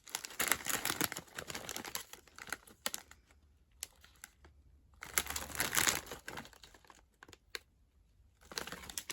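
Crisp packet crinkling and crackling as it is handled, in a few separate bouts with short pauses between.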